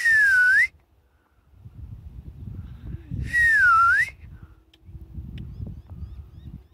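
A person whistling twice, about three seconds apart: each a short whistle that dips in pitch and swoops back up. A low rumble on the microphone runs between the whistles.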